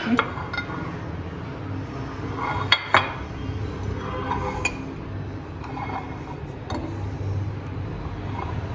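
Glass baking dish clinking and knocking against a stone countertop as it is tilted and shifted to spread flour over its greased inside, with two sharp knocks about three seconds in and a few lighter clinks later.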